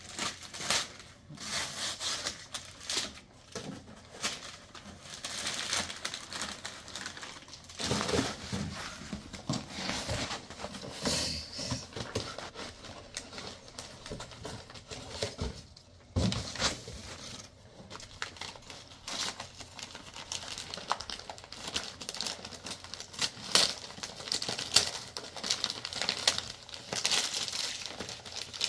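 Wrapping paper and cardboard packaging rustling, crinkling and tearing in irregular bursts as gifts are unwrapped.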